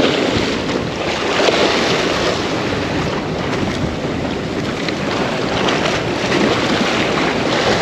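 Ocean surf washing in with wind buffeting the microphone: a steady, even rush of noise.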